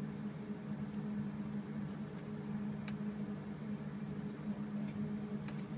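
Steady low hum of a small room's equipment and ventilation, with a few faint clicks.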